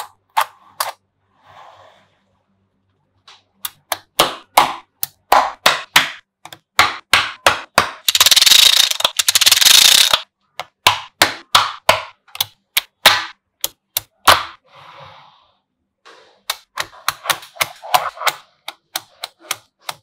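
Small neodymium magnetic balls snapping onto one another in sharp, irregular clicks. About eight seconds in, a dense clatter of many balls clicking together lasts roughly two seconds.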